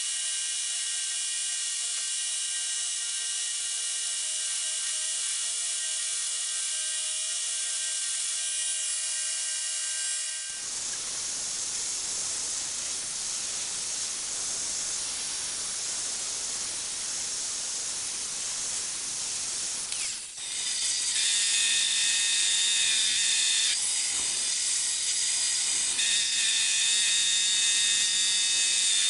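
Belt grinder running with a steel axe head held against the abrasive belt, a steady high whine and hiss. About ten seconds in it changes to an angle grinder grinding the axe head clamped in a vise, an even harsh noise. About twenty seconds in it changes again to a band saw cutting a wooden handle blank, louder and with steady tones that shift a little as the wood is fed.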